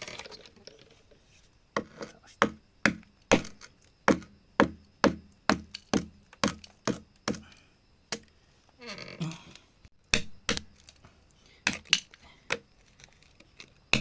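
Hammer striking rock in a steady run of sharp blows, about two a second, pausing for a couple of seconds in the middle before the blows resume.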